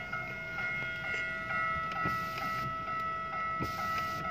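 Railway level-crossing warning bell ringing with a fast, even repeated strike, two to three a second: the crossing's alarm that a train is approaching.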